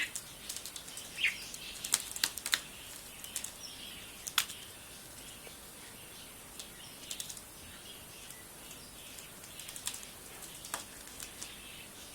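Budgerigars softly chirping and chattering, with scattered sharp clicks.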